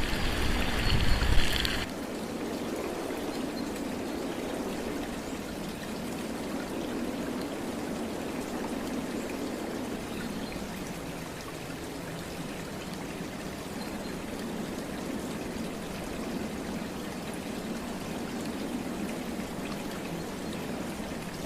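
Running water, a steady trickling rush. For the first two seconds a louder rumbling, wind-like noise lies over it and cuts off abruptly.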